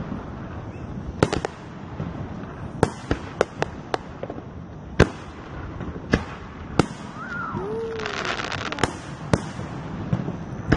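Aerial fireworks shells bursting: about a dozen sharp bangs at uneven intervals, with a quick run of them a few seconds in. A patch of crackling follows a little past the middle.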